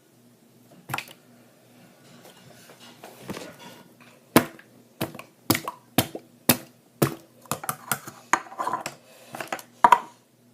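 Slime being worked by hand: a run of sharp snaps and slaps, about two a second and quickening, beginning about four seconds in.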